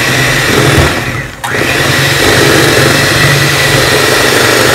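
Proctor Silex electric hand mixer running, its beaters whirring through batter in a stainless steel bowl. The motor sound sags about a second in and comes straight back.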